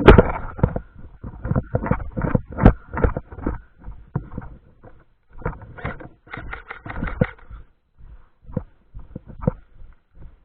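Footsteps crunching through dry leaves and brush, an irregular run of crunches and knocks several times a second, pausing briefly about five seconds in and again near eight seconds.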